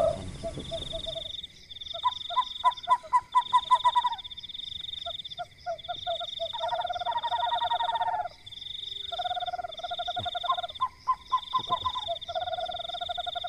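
Frogs calling: runs of quick repeated notes alternating with longer rattling trills, in several bouts. Over them runs a second, high-pitched steady pulsing trill.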